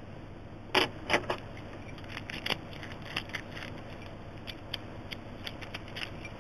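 Scattered small metallic clicks and rattles of a brass roller-bolt padlock and lock-picking tools being handled, with two louder clacks about a second in.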